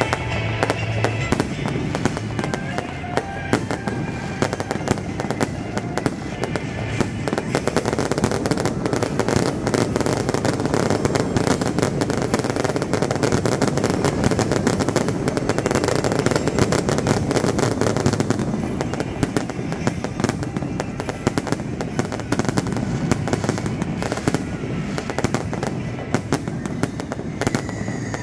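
Fireworks going off in a rapid, continuous barrage: a dense crackle of many small bangs and pops with no gap, thickest in the middle stretch.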